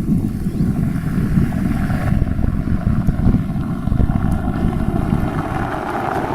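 A modified performance car's engine running loudly through its exhaust, a deep, uneven rumble that holds steady without a clear rise or fall in revs.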